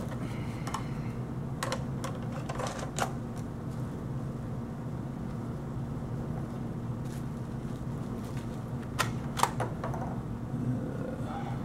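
Scattered light plastic clicks and taps as an orange 3D-printed top rail is handled and fitted onto a white plastic Nerf Mediator blaster, a few in the first three seconds and two more about nine seconds in, over a steady low hum.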